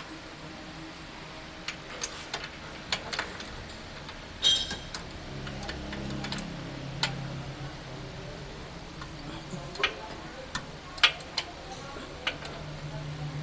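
Irregular sharp metallic clicks and clinks of a ratchet wrench and hand tools working the steering rack's mounting bolts, with one louder ringing clink about four and a half seconds in.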